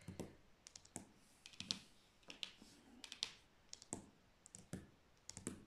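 Fingers tapping and clicking softly on laminated oracle cards on a table. The sound comes in small clusters of light clicks about every three-quarters of a second.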